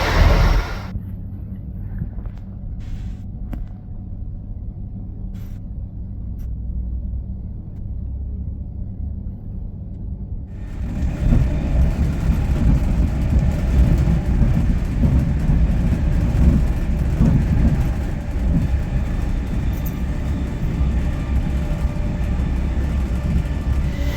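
Train running with a steady low rumble and a few faint clicks; about ten seconds in the noise gets louder and fuller, as the train speeds up or passes closer.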